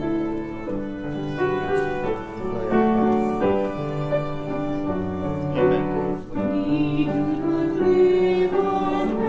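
Choral music: many voices singing slow, sustained chords that change every second or so, with instrumental accompaniment.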